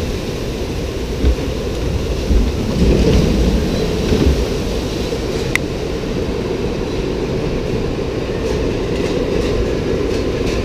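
Amusement ride vehicle rolling along its track, with a steady low rumble and a few clunks.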